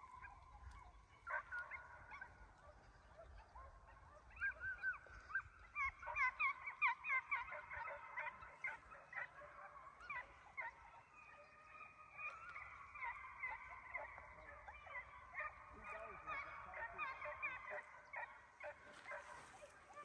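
A pack of deer hounds baying while running a deer: many short, overlapping cries, faint, busiest a few seconds in and thinning out toward the end.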